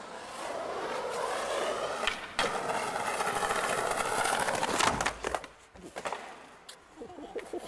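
Skateboard wheels rolling over paving stones, a steady rumble with clacks as they cross the joints, ending in a loud clack about five seconds in; after it only a few faint clicks.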